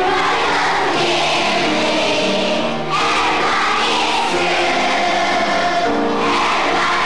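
A choir singing a song with instrumental accompaniment, in phrases that break briefly about three and six seconds in.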